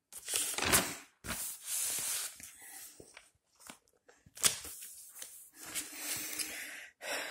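Notebook paper rustling as pages are turned and handled, in several noisy bursts with a few sharp clicks between them.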